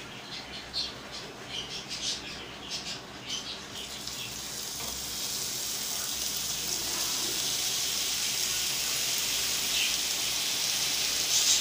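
Gram-flour batter dropping through a perforated ladle into hot oil to fry boondi: scattered pops and crackles at first, then a steady high sizzle that builds as more drops fry, with a brief louder burst near the end.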